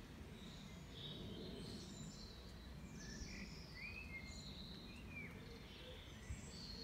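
Faint outdoor ambience: a steady low rumble with birds chirping and whistling in the background, many short calls.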